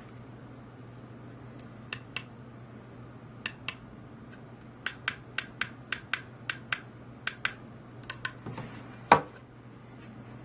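Sharp clicks of buttons being pressed on a PID temperature controller: two pairs, then a quick run of about a dozen, ending in one louder knock. A steady low hum runs underneath.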